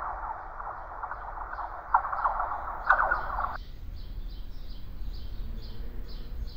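Scratchy, crackling hiss in a narrow middle band that cuts off suddenly about three and a half seconds in, with a steady string of short high chirps, two or three a second, running underneath.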